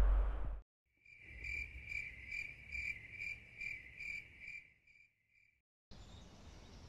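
A cricket chirping in an even pulse, a little over two chirps a second, for about four and a half seconds before it stops. Before it starts, a loud rushing noise cuts off within the first second, and a faint steady hiss comes in near the end.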